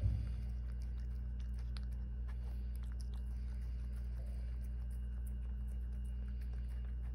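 A domestic cat chewing and biting into a soft sandwich off a plate, heard as faint, irregular wet clicks of chewing, with a single soft knock right at the start. Under it runs a steady low hum.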